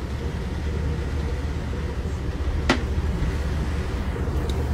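Steady low road rumble inside a moving tour bus, heard through a phone's microphone, with one sharp click a little past halfway.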